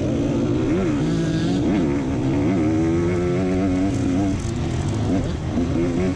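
Dirt bike engine under a rider on a trail, revved up and down in quick throttle blips, then held at a fairly steady pitch for a second or two before the blips resume near the end.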